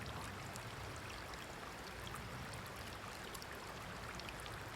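Small wood fire just lit from a single match, burning in a fire pit: a steady soft hiss with scattered faint ticks from the kindling.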